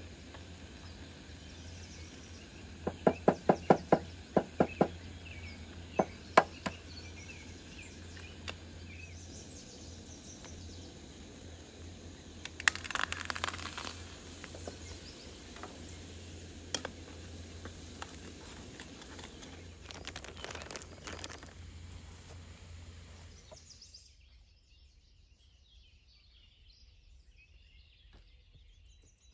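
A quick run of about eight sharp knocks a few seconds in, then scattered single knocks, a short clatter and more clicks over a low steady hum. The hum drops out about three quarters of the way through, leaving faint bird chirps.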